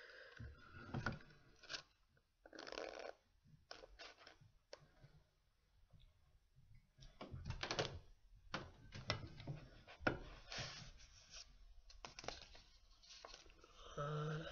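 Quiet handling sounds: paper rustling and light knocks as magazines are moved in a wooden bookbinding press, with a few sharp clicks scattered through.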